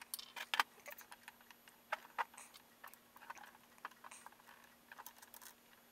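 Light, irregular clicks and taps of a small screwdriver and fingers on 3D-printed plastic clock parts as the screws in the clutch are adjusted and the frame is handled.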